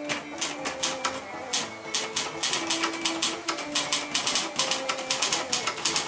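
Royal ultraportable manual typewriter, a Silver-Seiko-built variant of the Royal Mercury, being typed on: a quick, uneven run of sharp keystroke clacks, several a second.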